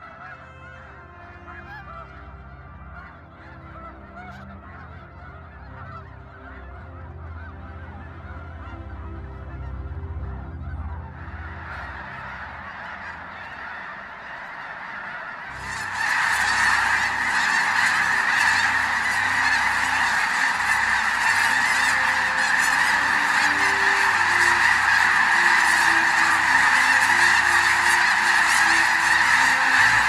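A large flock of snow and Ross's geese calling, a chorus of honking that slowly builds. About halfway through, the flock lifts off the water together and the sound jumps suddenly much louder into a dense mass of calls that stays loud.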